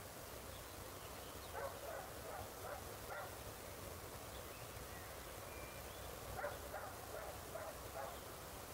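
A dog barking faintly, two quick runs of about five or six barks each, a few seconds apart.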